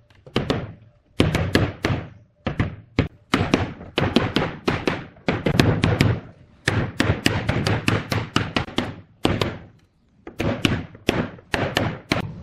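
Repeated knocks of hammering on wood, struck in quick runs of several blows with brief pauses between them.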